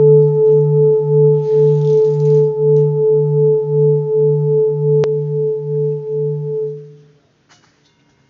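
Hand-made seven-metal Himalayan singing bowl ringing, its deep tone beating in a steady wah-wah pulse about one and a half times a second as it fades out about seven seconds in. A single sharp click about five seconds in, and near the end another bowl starts ringing faintly with the same kind of pulse.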